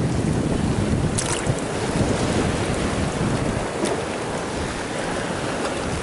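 Storm wind buffeting the microphone over sea surf and rain: a loud, steady rushing noise. Two short, sharp ticks cut through it, about a second in and near four seconds.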